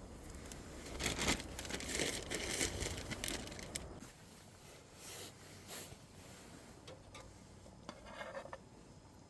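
Crinkling and tearing of handled material, in a dense run of rustles for a few seconds, then a few softer rustles later on.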